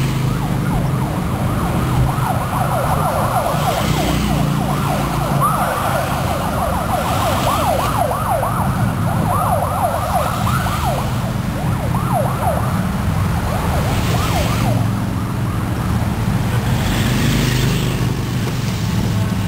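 Police sirens yelping in fast, repeated sweeps over the rumble of passing engines and traffic. The sirens stop about three-quarters of the way through, leaving the traffic.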